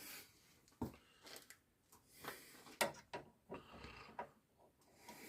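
A few scattered clicks and knocks of hand tools and metal parts being handled while a steering damper's fixings are worked on, the sharpest knock nearly three seconds in.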